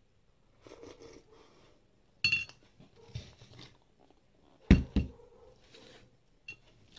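Eating and tableware sounds at a table. Soft mouth and handling noises come first, then a sharp ringing clink of tableware about two seconds in. Near five seconds there are two heavy knocks, the loudest sounds, as a glass is set down on the table.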